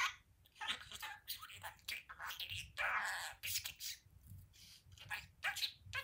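Blue budgerigar chattering: a quick run of short chirps, clicks and warbles, with a longer warble about three seconds in.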